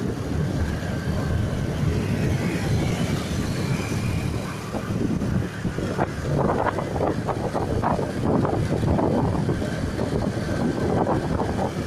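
A vehicle running steadily on the move, with wind buffeting the microphone; the buffeting grows choppier about halfway through.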